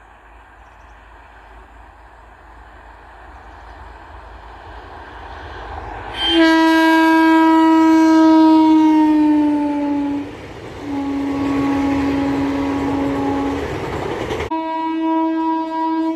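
Indian Railways train approaching with a rising rumble, then sounding a long, loud horn blast whose pitch drops slightly as it passes. A second steady blast follows over the noise of the passing train, and after an abrupt cut about fourteen seconds in, another horn blast near the end.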